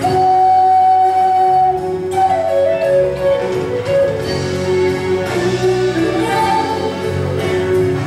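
Wooden Native American flute playing a slow melody: a long held note at the start, then notes stepping down and climbing back up, over a low sustained accompaniment.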